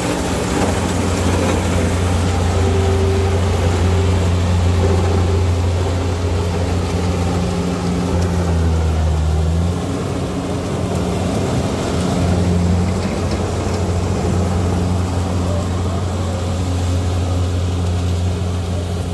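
Kubota DC-70 combine harvester's diesel engine running steadily under load as it cuts and threshes standing rice. The engine note dips lower briefly about halfway through, then recovers.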